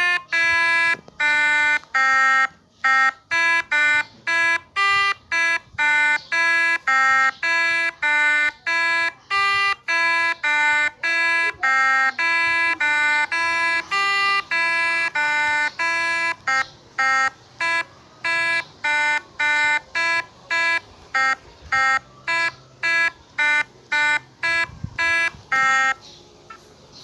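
Pianika (melodica) playing a basuri telolet bus-horn tune as a long run of short, separated notes, about two a second, stepping up and down in pitch; the notes stop shortly before the end.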